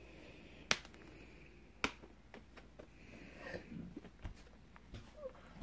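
Clear plastic bead-storage case being handled and unlatched: two crisp plastic clicks about a second apart, then softer ticks and taps of the lid and cubes.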